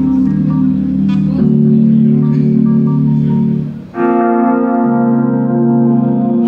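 Live band music built on long held keyboard and organ chords: the chord changes about a second and a half in, fades briefly, then a new, brighter chord comes in at about four seconds.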